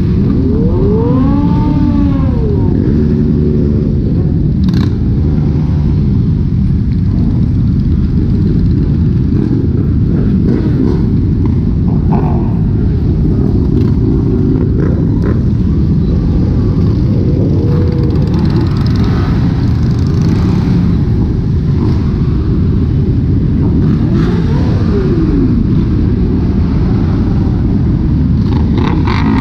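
A large group of motorcycles riding together, their engines running loud, with riders revving now and then: one clear rise and fall in pitch about a second in, and further revs later on.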